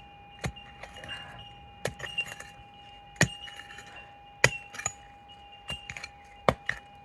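A digging pick striking into stony creek ground, about six sharp clinking hits roughly a second apart, with a faint steady tone underneath.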